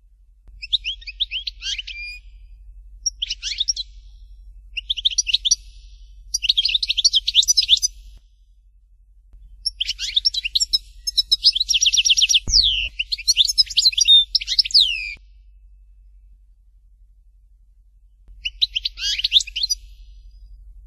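Algerian goldfinch (European goldfinch) singing in phrases of rapid, high twittering with short trills, broken by pauses; the longest phrase runs about five seconds in the middle. A faint low hum lies under the song.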